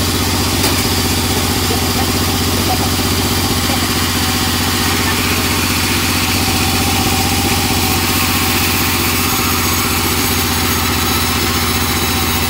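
Sawmill band saw running steadily while a teak board is fed through the blade: a loud, low droning hum with a fast, even pulse and a hiss of cutting above it. The uploader says the saw feels blunt in this very hard teak.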